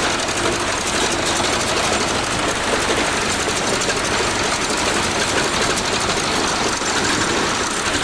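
Bulldozer engine running steadily.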